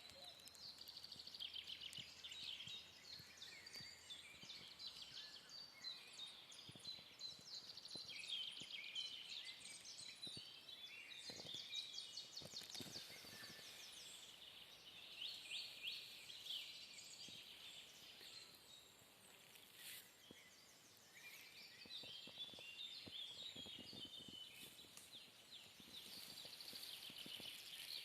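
Faint songbirds singing over one another in woodland, a chorus of overlapping phrases and rapid high trills.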